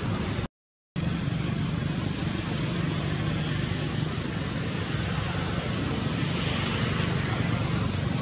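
Steady outdoor background noise, a low rumble with hiss, that cuts out completely for about half a second near the start.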